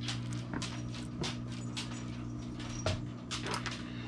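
Scattered light clicks and taps of a spoon against the plate and cheese bag as shredded cheese is spooned onto a tortilla, over a steady low hum.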